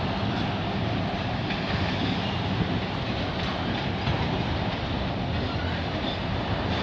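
CN freight train rolling past, its auto-rack cars' wheels running steadily on the rails with a low rumble and occasional clicks.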